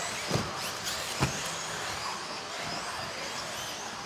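A pack of electric 1/10-scale 2wd RC buggies racing, with high motor whines rising and falling over a steady hiss. Two sharp knocks come about half a second and a second and a quarter in.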